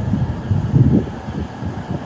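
Wind buffeting the microphone in low, irregular gusts, strongest about a second in.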